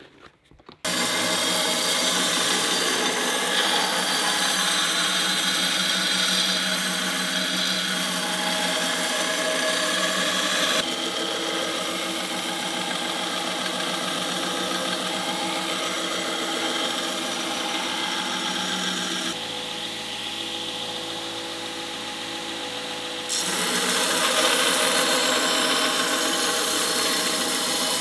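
Belt grinder running with a steel knife blade pressed to the moving belt: a steady grinding hiss over the motor's hum. It starts just under a second in and shifts abruptly in level and tone three times, as the work moves from one grinding pass to another.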